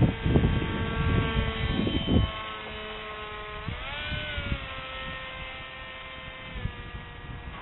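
Electric motor and propeller of a scratch-built Depron foam RC plane whining in flight, its pitch rising sharply about four seconds in, then stepping down near the end. Wind buffets the microphone with low rumbles during the first two seconds.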